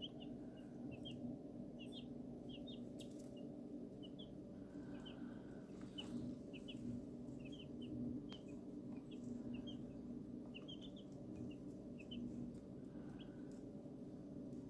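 A brood of baby chicks peeping: many short, high chirps, several a second, from different birds, over a steady low hum.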